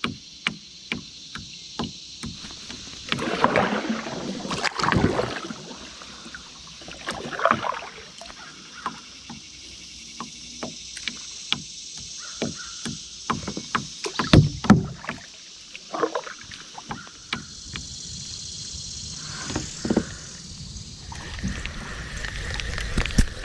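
A plastic kayak moving on a slow river: water swishes in several short strokes, with scattered knocks and clicks against the hull, over a steady high hiss.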